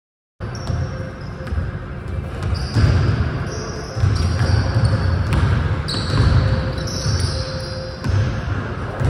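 A basketball dribbled on a hardwood gym floor, irregular thuds echoing in a large gym. It starts a moment in, after a short silence.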